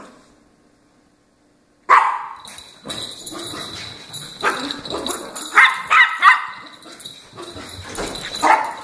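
Small dogs playing and barking: after a quiet start, sharp high-pitched barks and yips break out about two seconds in, with a quick cluster of yaps near the middle.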